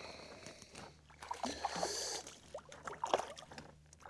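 Irregular water splashes and knocks on a kayak as a small trout is brought in and handled.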